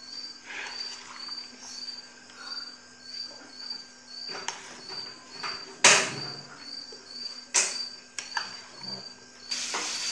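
A serving spoon clinking and scraping on a glass serving plate as salad is dished out, with two sharp clinks about six and seven and a half seconds in. A cricket chirps steadily behind it, about two chirps a second, and near the end a steady hiss comes in.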